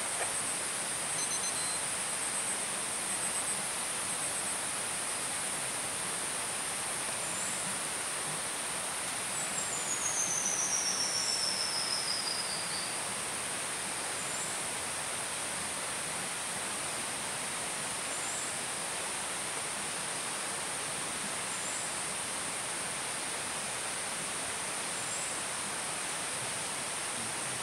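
Forest ambience: a steady high-pitched insect chorus over an even hiss. Short high chirps recur every few seconds, and about ten seconds in there is one long whistle falling in pitch over roughly three seconds.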